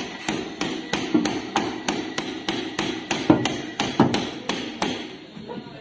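Steel hammering on the rusty rear leaf-spring mounting of a car: a steady run of sharp metal-on-metal blows, about three or four a second, knocking the spring and axle free, stopping shortly before the end.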